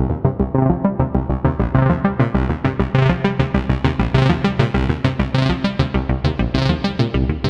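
Analog synthesizer jam from a Moog Mother-32, Moog DFAM and Arturia MiniBrute 2S: a fast repeating sequenced pattern of short notes over a MiniBrute bassline. The notes grow brighter from about three seconds in.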